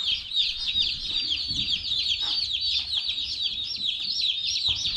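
A brood of day-old Cornish Cross chicks peeping without pause, many short, high, downward-sliding peeps overlapping at once.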